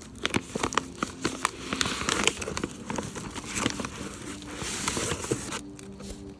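Packaging being handled as a shipping box is opened: dense crinkling and crackling with many sharp clicks, stopping abruptly about five and a half seconds in.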